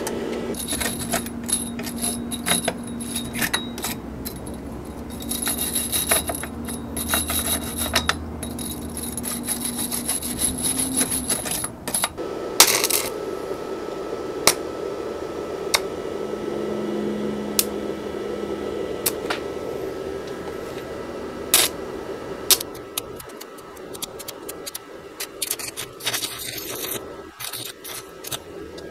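Stick-welding arc from a small inverter stick welder crackling and sputtering at about 80 amps, in several dense bursts with sharp pops between them.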